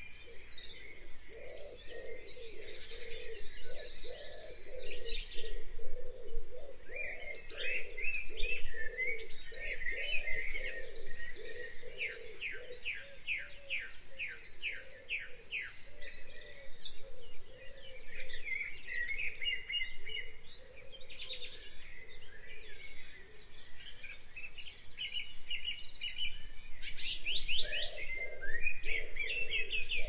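Mixed songbird chorus: many birds chirping, trilling and calling over one another, including a quick run of repeated notes about twelve seconds in, with a lower, pulsing sound underneath.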